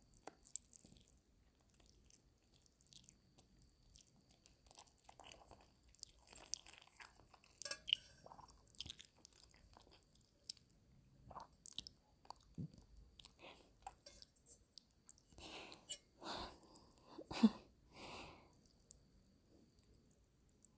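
Close-miked eating: chewing and biting with soft crunches and mouth clicks at irregular intervals, louder in a cluster about fifteen to eighteen seconds in.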